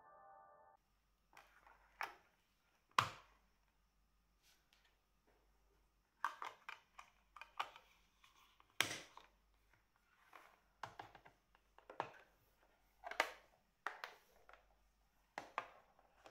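Handling noises from a metal SteelBook case and its clear plastic disc tray: an irregular series of clicks and taps as a disc is pressed onto its hub and the case is shut, with a few sharper snaps among them.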